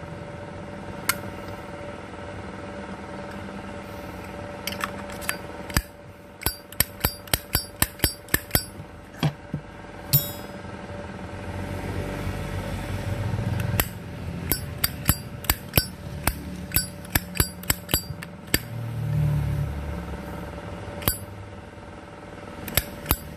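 Zippo lighter's steel lid flicked open and snapped shut again and again on its newly replaced hinge: runs of sharp metallic clicks and clinks, with one brief ringing clink about ten seconds in. A low steady hum sits underneath.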